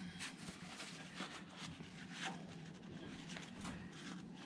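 Faint rubbing and rustling of a blue shop towel wiping out the metal housing of a Yanmar 3GM30 raw-water pump as it is handled, in short irregular strokes.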